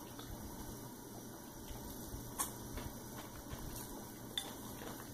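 Quiet eating: a few faint, sparse clicks of chopsticks against a ceramic bowl of black bean noodles, over low steady room noise.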